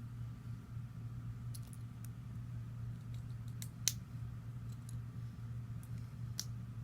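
LEGO pieces being handled and pressed together: a few sharp plastic clicks spaced a second or so apart, the loudest about four seconds in, over a steady low hum.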